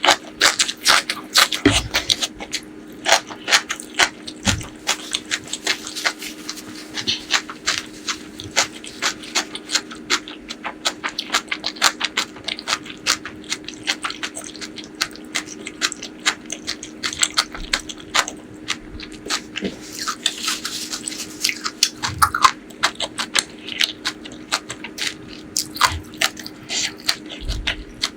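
Close-miked eating sounds: wet chewing and mouth smacks with many quick sharp clicks, over a faint steady hum.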